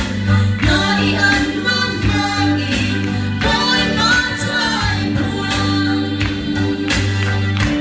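Live gospel song: a woman singing with band accompaniment, with steady bass notes and a drum beat a little under one stroke a second.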